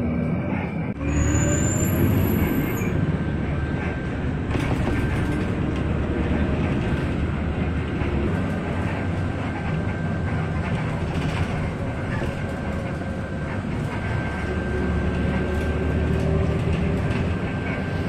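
Cabin noise of a city bus under way: steady engine and road rumble, which picks up with a faintly rising engine note about a second in, and a faint steady high whine.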